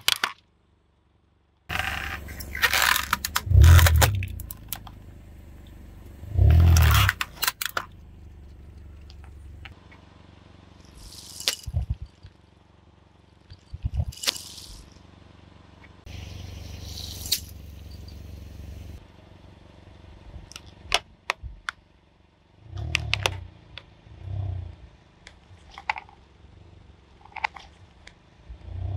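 Car tyre rolling over silicone pop-it fidget toys and crushing them, in several separate passes. Loud bursts of crushing noise come in the first eight seconds, then scattered sharp pops and clicks with a few dull thumps.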